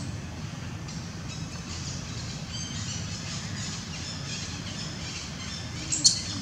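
Birds chirping faintly over a steady low rumble, with one sharp, high-pitched squeak near the end that is the loudest sound.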